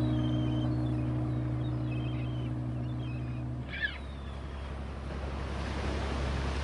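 A held chord of background music dies away a little over halfway through. It leaves a boat's low steady engine rumble with wind and sea noise, which grows louder towards the end. A short high chirp sounds just as the music stops.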